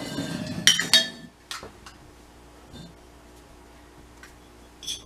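Terracotta flower pots clinking as they are set down on a hard floor: two sharp, ringing clinks about a second in, then a few faint taps and ticks as the pots are nosed and nudged.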